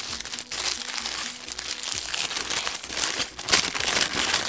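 Black tissue paper crinkling and rustling as it is pulled open by hand, over soft background music.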